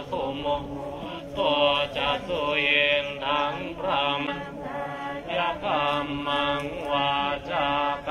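Buddhist chanting in Pali: a melodic recitation of blessing verses, sung in held, wavering phrases that break roughly every second or so.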